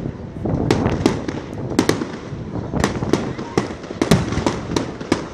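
Aerial fireworks going off: a dozen or more sharp bangs in quick, irregular succession over a continuous low rumble of further bursts.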